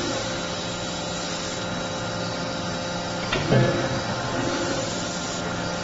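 40 kJ CNC fully hydraulic die forging hammer running under test: its hydraulic system hums steadily, and one blow of the ram on the hot workpiece lands about three and a half seconds in.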